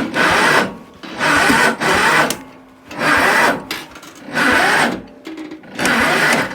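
John Deere 112 garden tractor engine being cranked over and not firing, in five rhythmic surges about every second and a half: a cold no-start.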